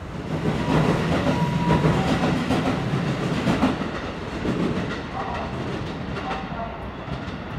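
Electric commuter train running past a station platform: a steady rumble of wheels on rail with scattered clattering knocks, building up about half a second in and easing slightly in the second half.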